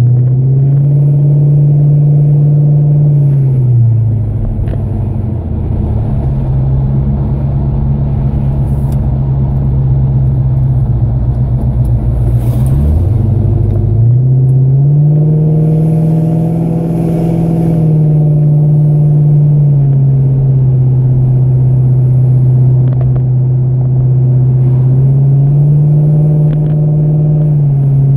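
Classic muscle car engine heard from inside the cabin while cruising. Its pitch rises and falls as the car speeds up and eases off. It drops to a deep rumble about four seconds in, climbs again around fourteen seconds, eases back, and rises and falls once more near the end.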